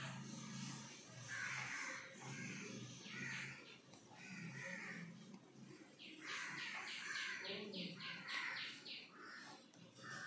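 Birds calling: separate calls, with runs of quick repeated notes about six to nine seconds in.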